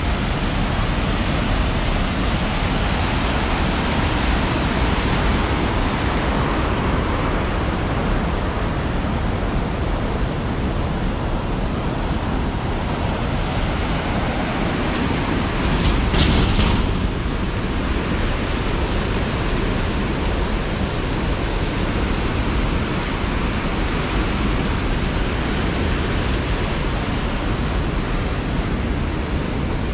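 Fast water rushing over the stepped concrete weirs of a channelled mountain river, a steady roar, with a brief louder rush about halfway through.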